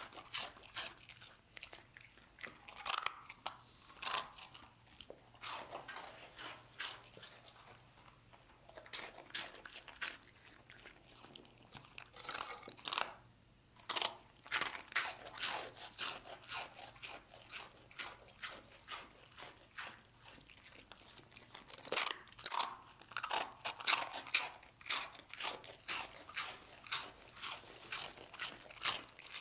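A dog crunching and chewing dry rusk cubes: quick runs of crisp crunches, broken by a few short pauses.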